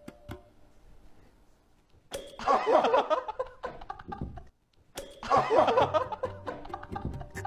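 A slap of a hand on a forehead, followed at once by loud laughter from several people, happening twice with a brief dead gap between.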